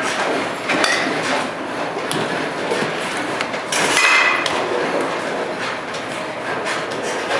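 Baseball bat striking a fast-pitched ball about four seconds in: a sharp crack with a brief ring, the loudest sound here. A fainter knock comes about a second in, over a steady mechanical clatter.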